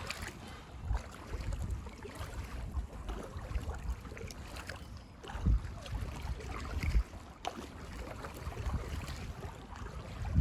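Paddle strokes from an inflatable kayak dipping into canal water, with wind buffeting the microphone. There are a couple of louder low bumps about halfway through.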